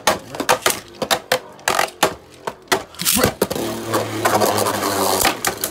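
Two Beyblade Burst spinning tops, Imperial Achilles and Master Valkyrie, clashing in a plastic stadium: rapid sharp plastic clicks and knocks as they hit each other and the stadium wall. From about three and a half seconds in, this turns into a denser, steadier whirring rattle with a low hum.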